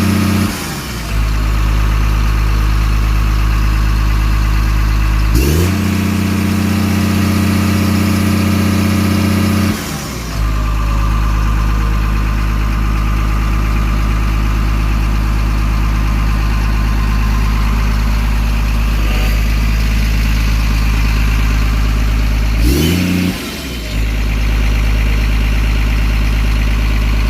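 Komatsu PC 210 excavator's diesel engine running and changing speed. It drops to a lower speed about half a second in, revs up quickly around five seconds, falls back near ten seconds, and surges briefly around twenty-three seconds before settling again.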